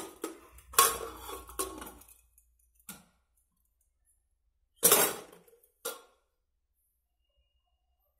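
Aluminium pressure cooker lid clattering and clanking against the pot as it is fitted and closed: a run of metal knocks over the first two seconds, a small knock near three seconds, and a loud clank about five seconds in followed by a lighter one.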